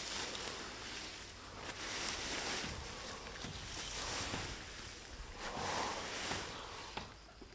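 A metal rake dragged through a thick layer of dry fallen leaves on grass, a rustling sweep in repeated long strokes about every two seconds.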